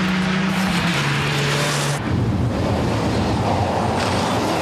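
Rally car engine running hard, its pitch dropping a step about a second in. An abrupt cut at about two seconds brings in another rally car's engine running at speed.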